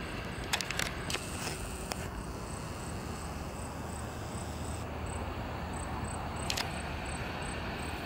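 Outdoor ambience: a steady low rumble, with a faint high pulsing tone a few beats a second and a few sharp clicks, some about a second in and one about two-thirds of the way through.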